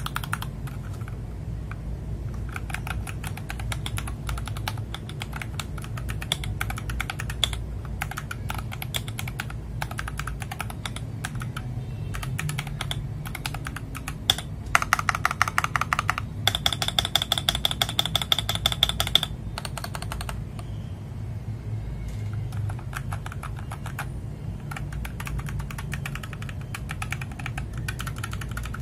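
FL Esports MK870 mechanical keyboard with PBT Cherry-profile keycaps being typed on in quick, continuous keystrokes. About halfway through come two louder runs of very rapid strikes lasting a couple of seconds each.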